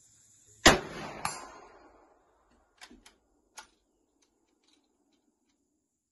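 A single rifle shot from a Swedish M96 Mauser in 6.5×55 mm: a loud crack just under a second in with a rolling echo that dies away over about a second, and a second, weaker sharp crack about half a second after the shot. A few faint light clicks follow around three seconds in.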